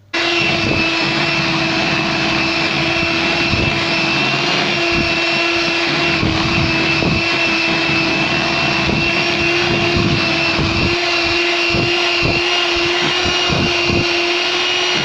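Electric hand mixer switching on and running steadily, with a constant hum and a high whine, its twin beaters whipping thick mascarpone cream in a plastic bowl. Irregular low knocks sound through it.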